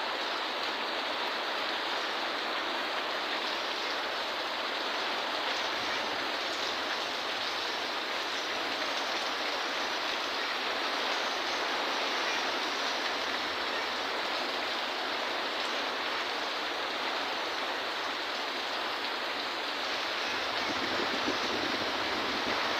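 Heavy rainstorm: rain pouring down in a steady, even hiss.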